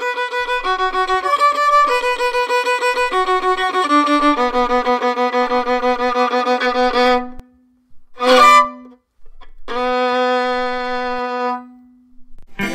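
Background music: a quick run of rapidly repeated pitched notes for about seven seconds, then after a short break one long held note that fades away.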